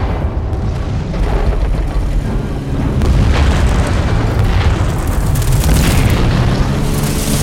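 Film battle sound of aerial bombs exploding in the sea beside ships, with booming blasts and water spray, the loudest in the second half, over a low droning musical score.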